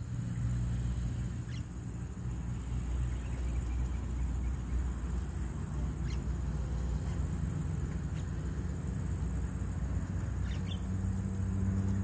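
Steady low outdoor rumble with a few faint, short bird chirps.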